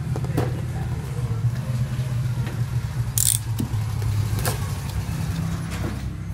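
Cardboard shipping case being handled, with scattered knocks and a short sharp rasp about three seconds in, over a steady low mechanical hum.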